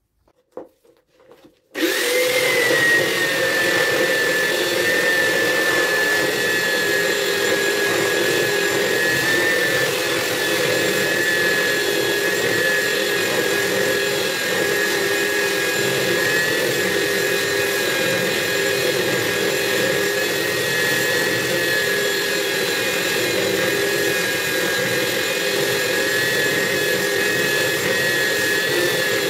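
A few faint clicks, then a handheld electric belt sander switches on about two seconds in and runs steadily, sanding a wooden slab tabletop, with a high motor whine over the rasp of the belt on the wood.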